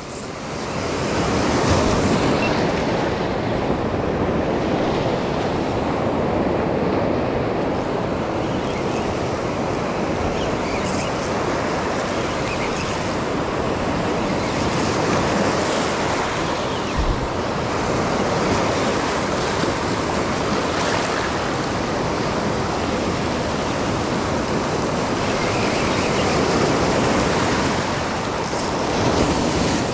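Surf breaking and washing up over a rocky cobble beach: a steady rushing noise that swells a little as waves come in.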